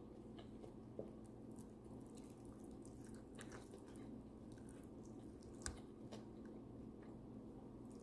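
Quiet eating sounds: fingers picking and pulling apart a cooked tilapia, with soft squishes, small clicks and chewing over a faint steady hum. A sharper single click comes a little past two-thirds of the way through.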